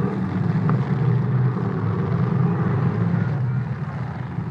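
Demolition derby cars' engines running together, a loud, steady, rough low drone.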